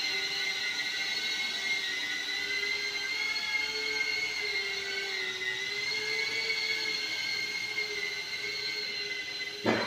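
Cinewhoop drone with Gemfan D51 five-blade ducted propellers in flight, its motors and props giving a steady high whine that wavers slightly in pitch. A short, sharp sound cuts in near the end.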